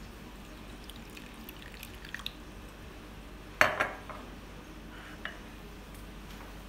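Warm water poured faintly from a glass jar onto instant yeast in a glass bowl, then one sharp knock about three and a half seconds in as the glass jar is set down on the counter.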